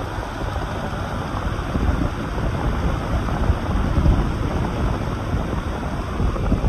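Electric fan blowing hard, its air stream buffeting the microphone: a steady rushing hiss with irregular low rumbling gusts.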